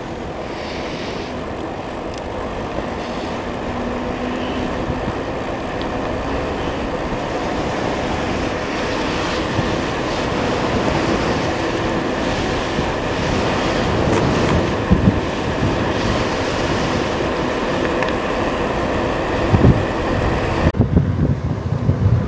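Strong wind rushing over the microphone during a bike ride, growing slowly louder, with heavy low buffeting thumps from gusts about two-thirds of the way in and again near the end.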